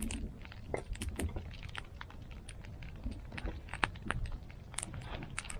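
Split firewood being handled and stacked: irregular light clacks and knocks of wood against wood.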